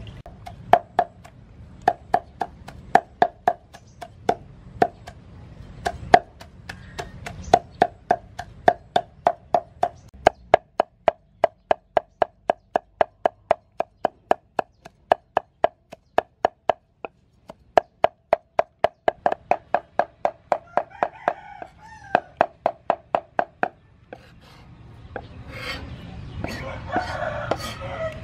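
A steel cleaver chopping soaked dried red peppers on a thick wooden chopping board: repeated sharp knocks, each with a short ringing tone, settling into an even beat of about three a second. Near the end the chopping stops and a softer, noisier sound takes over.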